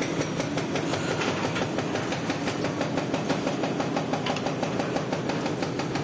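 JCB backhoe loaders' diesel engines running during demolition work, with a fast, regular clatter over a steady low drone.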